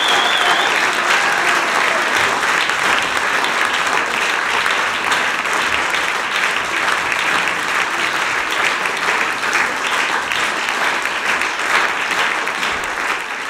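Audience applauding steadily, a dense even clapping that holds throughout.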